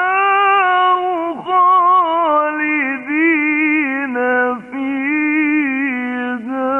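Male Quran reciter chanting in the melodic mujawwad style, drawing out a long ornamented phrase in one breath with the pitch turning and wavering through small melodic runs and briefly dipping twice.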